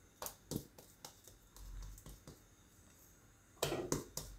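Hands patting and flattening a ball of soft kulcha dough: a few faint slaps spread out, then a louder cluster of taps near the end as the dough is pressed down onto a wooden rolling board.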